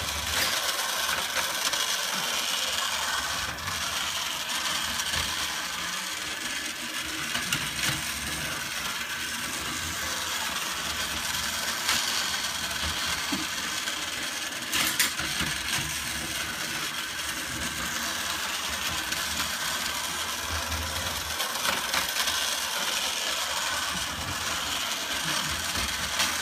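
Vintage battery-operated tin toy train running along its tin track: a steady mechanical rattle of its small motor, gears and tin wheels, with a few sharp clicks.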